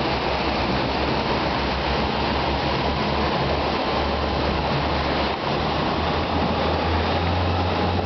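Motorboat engine running under way, with a steady rush of water and wind noise over it. The engine's low hum grows louder near the end.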